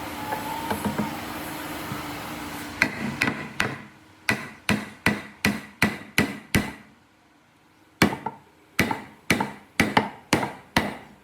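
Hammer blows in a woodworking shop: two runs of sharp, evenly paced strikes, about two to three a second, with a pause of about a second between them. A steady machine hum at the start drops away once the hammering begins.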